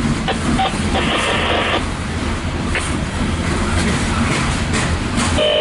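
Loaded CSX coal gondola cars rolling past on the rails: a steady rumble with wheel clicks over the rail joints and a brief higher scraping about a second in. A steady tone sets in just before the end.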